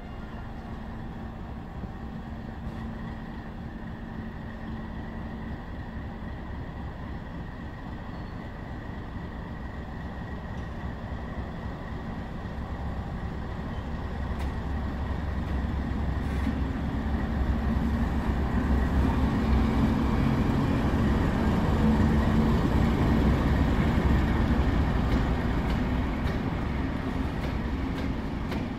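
A diesel locomotive running light, its engine giving a steady low drone that grows louder as it approaches. It is loudest about three-quarters of the way through as it passes close, then eases slightly.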